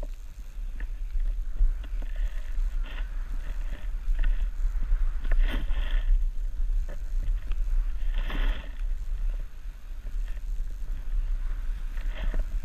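Skis cutting turns through deep powder snow, heard as a steady rush of wind buffeting a pole-mounted action camera's microphone, with hissing surges of snow spray on the turns, the loudest about five and a half and eight seconds in.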